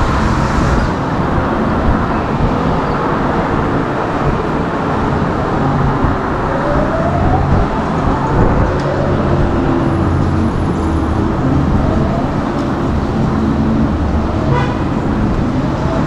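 Steady rumble of wind and road noise while riding a VSETT 11+ electric scooter in traffic, with a few short rising whines about halfway through.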